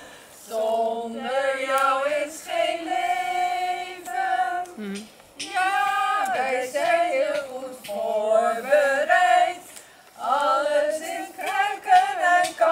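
A small group of women singing a Dutch song together in phrases of held notes, with short breaks between phrases.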